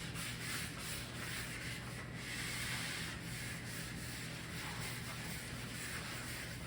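Pen writing out a calculation: repeated short scratching strokes against a writing surface, over a steady low electrical hum.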